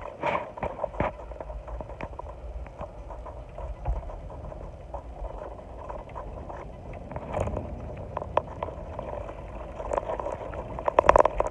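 A vehicle driving along a road: steady road and running noise with a low rumble, broken by frequent clicks and rattles, which bunch into a louder burst of rattling near the end.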